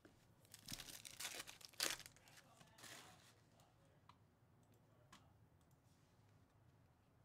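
Wrapper of a Topps Chrome basketball trading-card pack being torn open and crinkled by hand: a run of quick rips in the first three seconds, then quiet apart from a couple of faint ticks.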